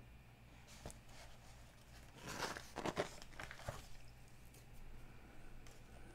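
A glossy magazine page being turned: a short dry paper swish and crinkle lasting about a second and a half, a little past two seconds in, after a soft tick about a second in.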